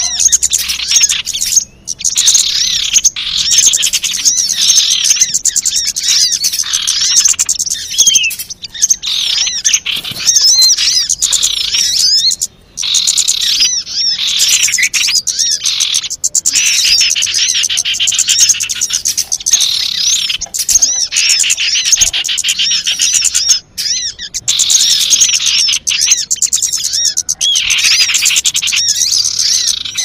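Bird-lure recording for small wild birds: a loud, dense chorus of rapid high chirps and twitters from many small birds calling over one another, with a few brief gaps.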